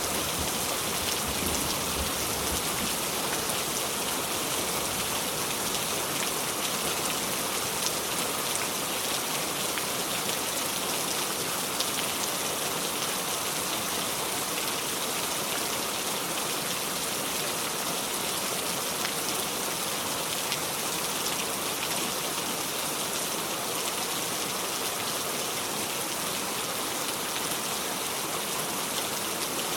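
Steady heavy rain falling: a dense, even hiss with scattered drops ticking through it.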